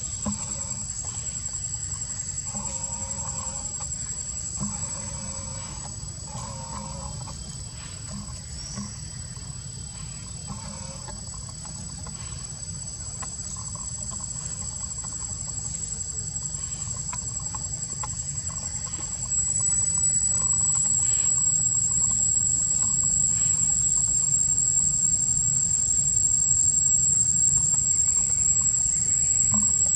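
Insects droning with a steady high-pitched whine, growing louder about two-thirds of the way in, over a low rumble. A few faint short animal calls come in the first few seconds.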